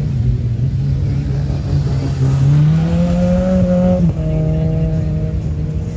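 Mitsubishi Lancer Evolution V's turbocharged four-cylinder engine revving hard while the car drifts on grass. The revs climb about two and a half seconds in, fall sharply about four seconds in, and then hold steady.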